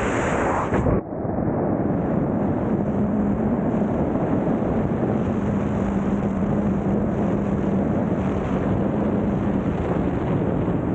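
Loud, steady rush of wind buffeting the camera's microphone in wingsuit flight, with a faint steady hum underneath. The rush dips briefly about a second in.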